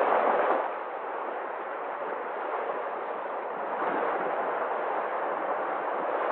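Ocean surf washing on a beach: a wave eases away just after the start and the next swells up about four seconds in.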